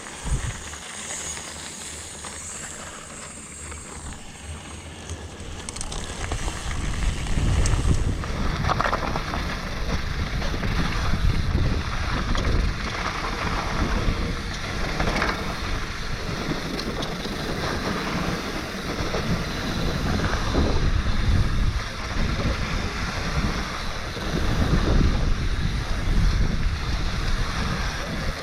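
Wind rushing over the GoPro microphone and a YT Tues downhill bike rolling over a dirt trail, with tyre rumble and knocks from bumps. It gets louder and rougher from about eight seconds in.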